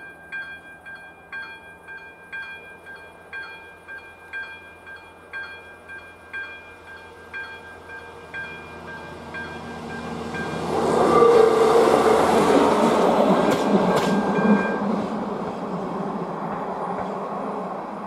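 Electronic level-crossing bell (AŽD ZV-02) ringing with evenly spaced dings, about two a second, the warning for an approaching train. About ten seconds in, a passenger train's running noise swells to become the loudest sound, with a sharp click near its peak, and then eases off toward the end.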